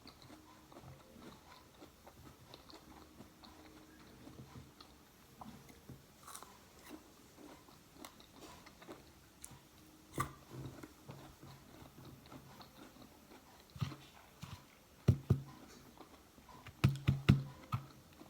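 Close-up chewing of crisp guava, with many small wet crunches and a few louder bites, the loudest clustered near the end.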